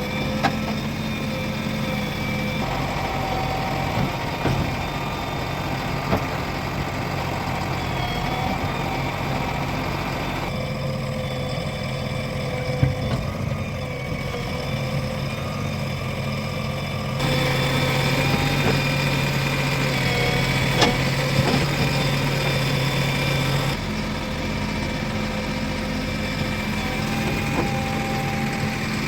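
Diesel engines of a backhoe loader and tractors running steadily, with a few faint knocks. The engine sound changes abruptly three times, at splices between takes.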